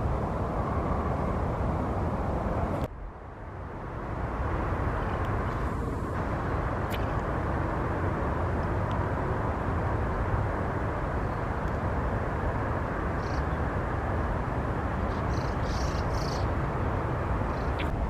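Steady low outdoor background rumble. It drops out suddenly about three seconds in and swells back over a second. A few faint, short, high-pitched sounds come in the last third.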